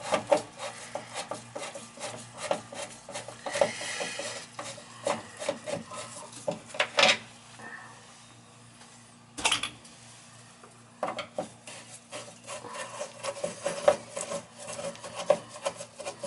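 A long screwdriver backing screws out of a washing-machine valve wall box's cover plate: a run of short scraping and clicking sounds as the tip grinds in the screw heads, with a few sharper knocks and a quieter lull in the middle.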